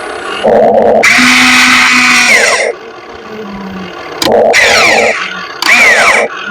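Electric motors of a radio-controlled model excavator whining in three loud bursts as it works, the pitch dropping as each burst winds down.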